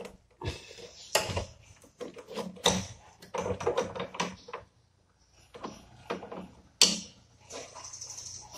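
Two wrenches, one of them an adjustable wrench, clinking and scraping on the brass flare nut of a split air conditioner's copper refrigerant pipe as it is tightened at the indoor unit. Irregular metal clicks and knocks with short rattles, the sharpest about seven seconds in.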